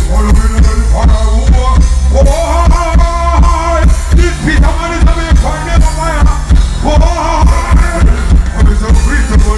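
Loud music with a heavy bass beat and a melodic sung line.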